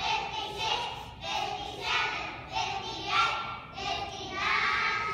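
A group of young children chanting numbers together in unison, counting aloud in a steady sing-song rhythm.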